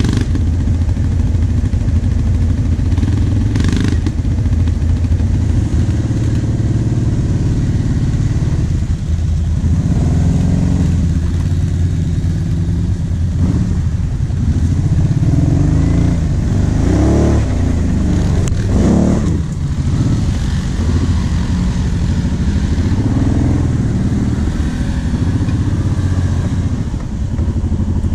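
ATV engines running on a dirt offroad trail: a steady low engine drone, with the throttle opened and closed several times about halfway through, the pitch rising and falling.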